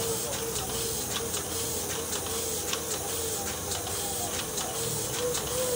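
Small sheet-fed offset printing press running, with a steady hiss and a rhythmic clicking pulse of about three to four strokes a second as it cycles.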